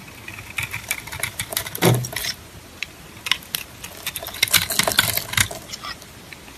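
A knife blade scraping and shaving a bar of Palmolive soap, the soap crumbling into flakes with crisp, irregular crackling scrapes. A louder scrape comes about two seconds in, and a dense run of crackles comes around five seconds.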